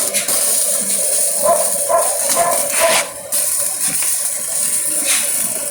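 Stick-welding arc from a Kawasaki inverter welder set to 100 amps: a steady crackling hiss as the electrode burns down. The hiss drops out briefly about three seconds in.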